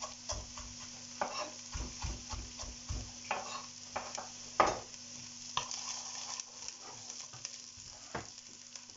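Kitchen knife chopping parsley on a plastic cutting board: irregular knocks, one or two a second, the loudest about four and a half seconds in, thinning out over the last few seconds. Under them, the steady sizzle of a leek, onion and garlic sofrito frying in olive oil in a pan.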